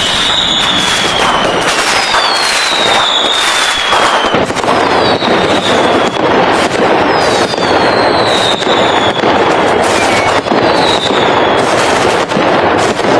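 Fireworks going off in a dense barrage: continuous crackling and popping with many sharp bangs, and about five whistling fireworks, each a high whistle falling in pitch over a second or so.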